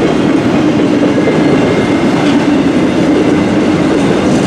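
Loaded mixed-freight cars of a Canadian National freight train rolling steadily past close by, a loud continuous rumble of steel wheels on the rails.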